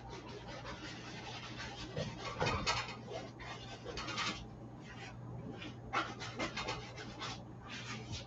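A bristle paintbrush dabbing and dragging oil paint across stretched canvas: short, irregular scratchy strokes, bunched together about halfway in and again near the end, over a steady low electrical hum.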